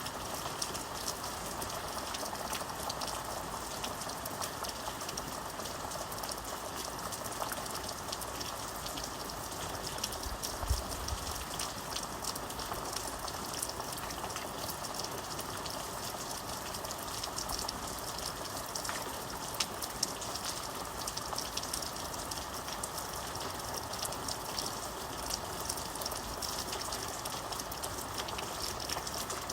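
Steady rain falling, with a constant hiss and many individual drops pattering. A brief low thump comes about ten seconds in.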